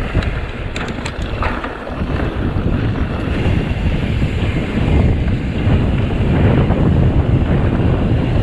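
Wind buffeting the microphone of a mountain bike rider on a trail ride, a steady low rumbling rush mixed with tyre and trail noise. There are a few sharp clicks or rattles about a second in.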